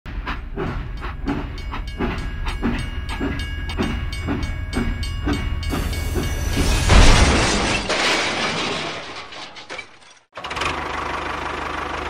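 Toy steam train chugging in a steady rhythm of about three clicks a second, with steady tones over it. About seven seconds in, a loud rushing crash takes over, then a noisy hiss that breaks off briefly near ten seconds and comes back.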